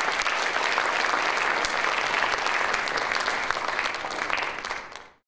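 Audience in a hall applauding, a dense steady clapping that fades out near the end.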